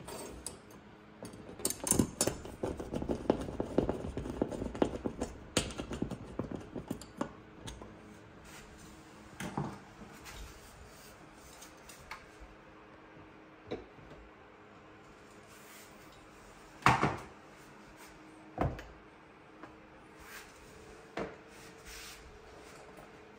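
Clattering and tapping of hard parts being handled: a dense run of clicks and knocks for the first several seconds, then a few separate knocks, the loudest about two-thirds of the way through, over a faint steady hum.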